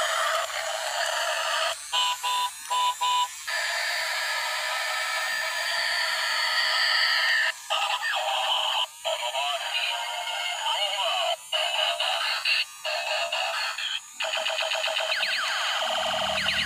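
A toy vehicle's battery-powered sound unit plays an electronic tune and sound effects. It sounds tinny, with no bass, and there are three short beeps about two seconds in.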